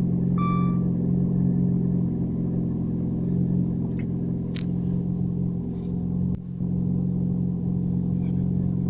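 Car engine with a muffler delete idling just after a cold start, heard inside the cabin with the windows rolled up: a steady low drone. A short electronic beep sounds once at the very start.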